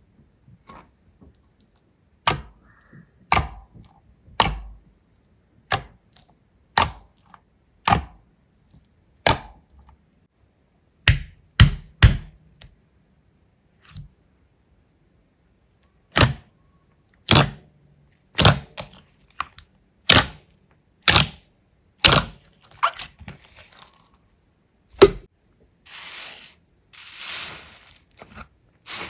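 Slime being pressed and poked, giving loud sharp pops roughly once a second, some in quick pairs. Softer crackling takes over near the end.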